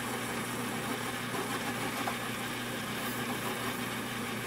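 Atlas metal lathe driven by a 1/3 hp electric motor, running steadily with a low hum as the tool feeds along the turning workpiece.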